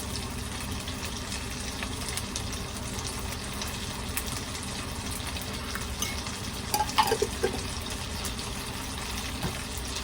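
Gyoza frying in a pan: a steady sizzle and crackle of oil, with a few light clinks about seven seconds in.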